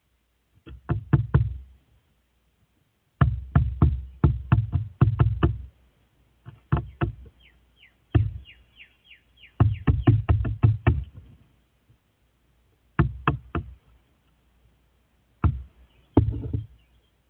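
A crow pecking at the wooden railing that the camera sits on: bursts of rapid, sharp knocks, several a second, with pauses between the bursts. Faint short chirps from small birds come in between.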